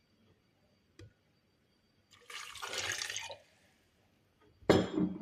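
Water poured into a blender jug, splashing for about a second, followed near the end by a loud knock as a hard container or lid is set down.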